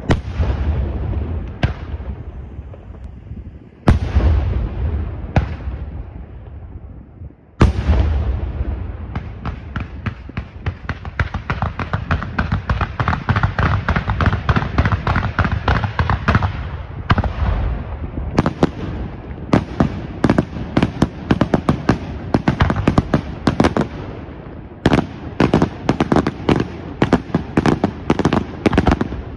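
Aerial fireworks display: three heavy shell bursts in the first eight seconds, each followed by a long rumbling echo. From about nine seconds in comes a rapid barrage of many sharp reports and crackling, several a second, which carries on as dense volleys of bangs to the end.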